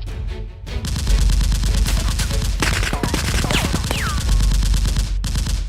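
Rapid automatic gunfire sound effects, starting about a second in over background music and running as a dense stream of shots with a short break near the end. A short falling whine sounds within the firing.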